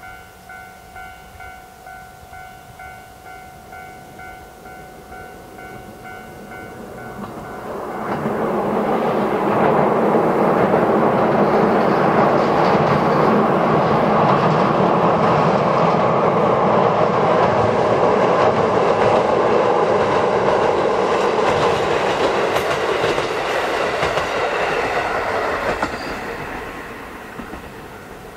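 Two-car KiHa 40 350-series diesel railcar crossing a steel railway bridge. The rumble of wheels and bridge builds from about six seconds in, stays loud and steady for most of the time, and fades away near the end.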